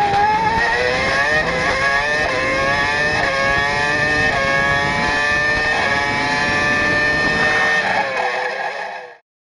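Formula One car engine at high revs, climbing in pitch and dropping back with each upshift about once a second; it fades out near the end.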